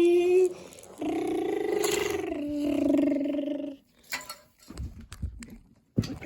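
A person making a toy vehicle's engine noise with their voice: a hummed drone that rises in pitch and holds, stopping a little under four seconds in. A few light clicks and knocks follow, like small toys being handled.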